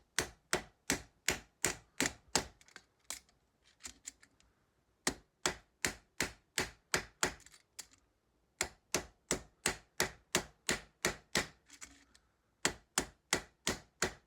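Ball peen hammer striking the steel rivets of a springform pan's latch against a chisel anvil held in a vise, about three sharp taps a second in four runs with short pauses between. The rivet heads are being peened over to mushroom them and take the play out of the loose clasp.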